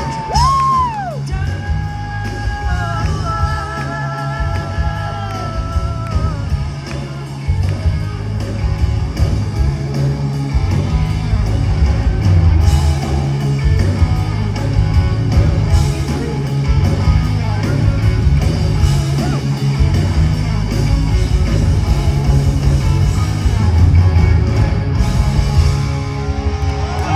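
A live rock band heard from the audience: drums, bass and a Les Paul electric guitar, with singing. There are long held high notes in the first several seconds, then the full band plays loud.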